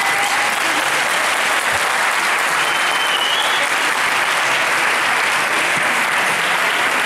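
A large audience applauding steadily, dense and unbroken, with a short high whistle rising over the clapping about three seconds in.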